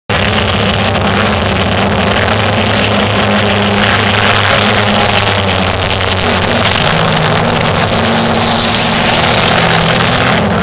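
A pack of compact sedan race cars running laps together, several engines held at high revs at once, their pitches shifting up and down as the cars pass.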